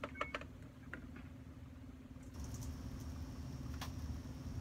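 A few light clicks and taps of something hard being handled, over a steady low hum. A faint high hiss comes in a little over two seconds in.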